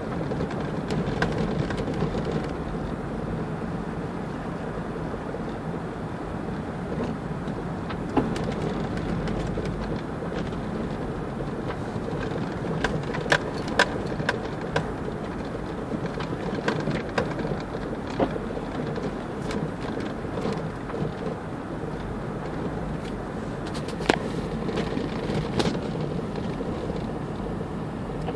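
Steady rumble of a car's engine and tyres on a packed-snow road, heard inside the cabin, with scattered sharp knocks and clicks, a cluster about halfway through and another single knock near the end.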